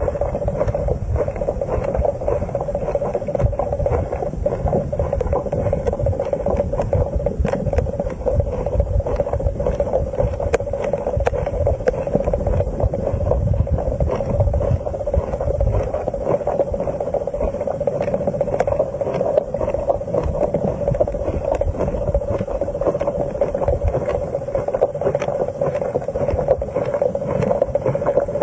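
Underwater ambience picked up by a submerged camera: a steady hum with low rumble and a constant crackle of small clicks.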